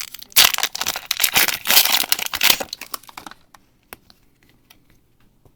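Foil booster-pack wrapper of Pokémon trading cards crinkling as it is handled and torn open, for about three seconds. After that come only a few faint ticks.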